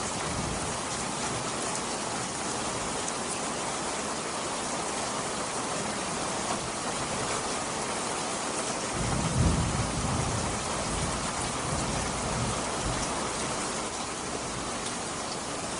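Steady rain pouring down. About nine seconds in, a low rumble of thunder swells and fades over a few seconds.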